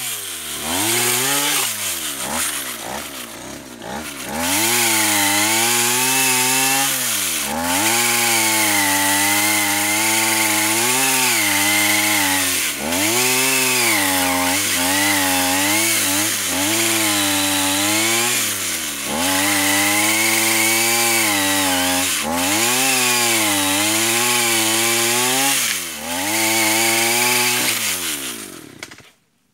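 Brushcutter engine driving a homemade chainsaw attachment, its pitch rising and falling again and again as it revs up and drops back. It cuts off suddenly near the end.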